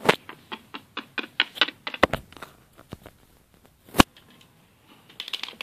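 Irregular clicks and taps of small plastic toys and wooden blocks being handled and set down on a wooden tabletop, with three sharper knocks: near the start, about two seconds in and about four seconds in.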